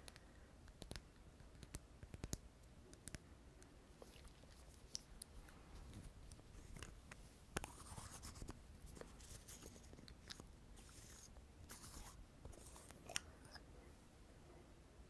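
Faint fingernail tapping and scratching on a frosted glass cosmetic bottle: irregular light clicks, with short scratchy rubs in the second half.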